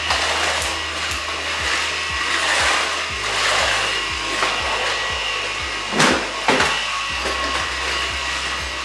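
Cordless stick vacuum running steadily over a kitchen floor, a whirring motor whine with hiss. Two sharp knocks come about six seconds in.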